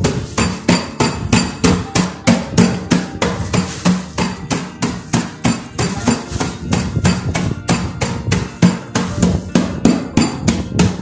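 Oreo biscuits in a plastic bag being pounded against a wooden table to crush them, with repeated knocks at about three a second.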